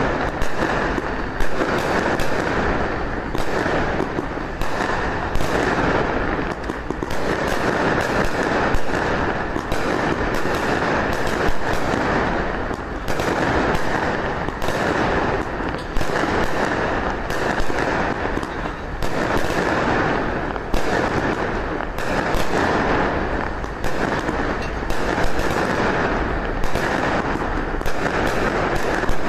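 Strings of firecrackers going off in a continuous dense crackle, with louder bangs scattered through.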